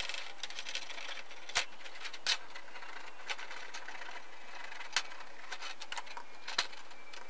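Light scratching and a handful of sharp clicks, a second or so apart, as fingers rub and press along a plastic laptop screen bezel, cleaning off old adhesive, over a steady low hiss.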